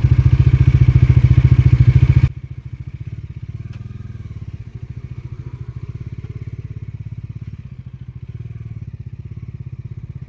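Bajaj Dominar 400's single-cylinder engine running under way with wind rush. A little over two seconds in, the sound drops sharply, and the engine then runs on at a lower, steady level.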